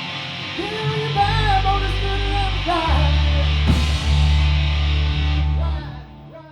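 Live rock band playing: electric guitar with sliding, bending notes over sustained bass notes and drums, with a cymbal crash past the middle. The band stops and the sound dies away near the end.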